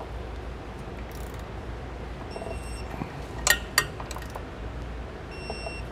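Click-type torque wrench tightening a nut on a trailer shock-extension bracket bolt, giving two sharp clicks a little past halfway as it reaches the set torque, over a steady low hum.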